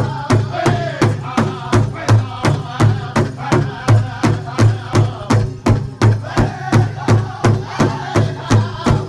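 Powwow big drum, a large hide drum struck in unison by several drummers with beaters in a steady beat of about three strikes a second, with the drummers singing together over it.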